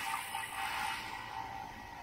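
Vintage Ski-Doo snowmobile's two-stroke engine running steadily while the sled travels at speed.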